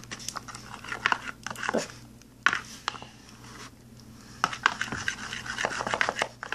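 Plastic spoon stirring and scraping a wet glue-and-contact-solution slime mixture in a small plastic tub, with sharp clicks and knocks of the spoon against the tub's sides, coming in spells. The slime is being activated but is still runny.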